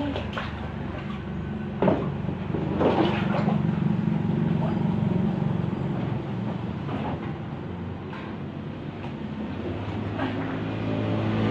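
A shovel scraping and slapping through thick wet mud on a hard floor, in several separate strokes, the loudest about two seconds in. Under it a steady low motor hum runs throughout.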